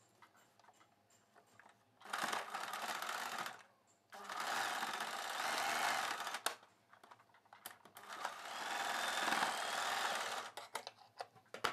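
Wonder Stitch electric sewing machine stitching fabric in three short runs of a second and a half to two and a half seconds, stopping briefly between them as the cloth is repositioned.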